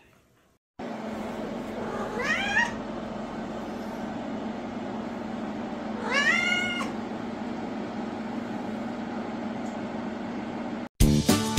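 A seal-point cat meowing twice, two drawn-out calls that rise and fall in pitch about four seconds apart, over a steady background hum. Music starts near the end.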